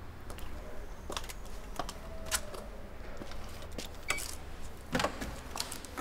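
Scattered footsteps, clicks and knocks of people handling things at a street door, with a short electronic beep about four seconds in as the door-code keypad is pressed and a heavier thump about five seconds in.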